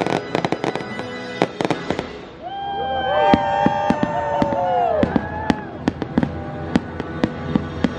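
Fireworks going off in rapid succession, many sharp bangs and crackles, over loud music. From about a third of the way in, long held notes swell and then bend downward near the middle.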